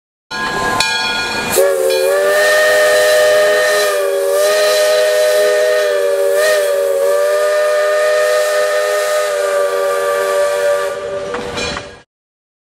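Steam locomotive's chime whistle blowing one long blast, a steady chord of several close tones over a hiss of steam, that wavers slightly in pitch a few times and cuts off near the end. A shorter, higher-pitched sound with hiss comes just before the whistle opens up, about a second and a half in.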